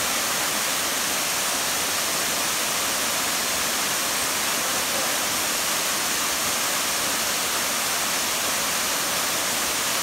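Small waterfall pouring over rocks: a steady, unbroken rush of water.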